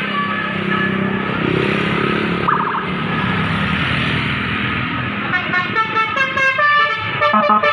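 A large vehicle passes with its engine running, then from about five seconds in a bus's multi-tone 'telolet' horn plays quick, repeated notes.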